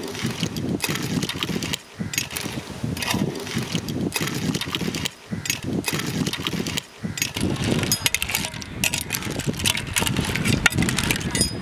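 A long metal ladle stirring clams in their shells in a large metal pot: the shells clatter and the ladle clicks and scrapes against the pot, in rapid uneven clicks.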